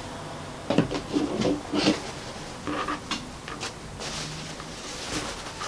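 Cotton fabric pieces being handled on a cutting mat: scattered light knocks and rustles, then a brief soft swish of cloth about two thirds of the way in.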